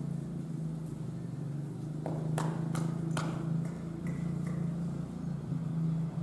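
Saddled horse walking on a sand arena: a quick run of four sharp clicks about two seconds in, over a steady low hum.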